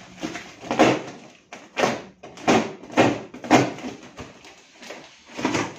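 Cardboard shipping box being torn open by gloved hands: cardboard and packing tape ripping in several short, irregular tears.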